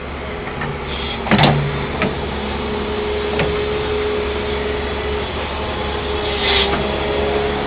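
Excavator engine running steadily, a constant low rumble with a steady whine over it from about three seconds in. A few sharp knocks cut across it, the loudest about a second and a half in.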